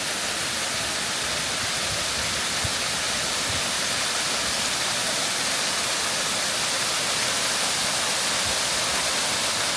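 Small waterfall cascading off a shale rock wall: a steady, even rush of falling and splashing water.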